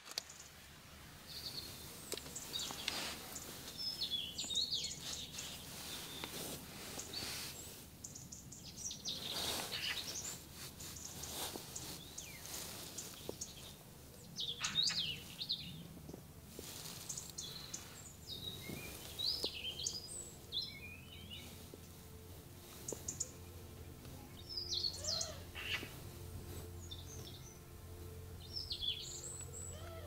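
Small wild birds chirping and twittering, many short scattered calls at varying pitches. Soft background music begins to come in over the last several seconds.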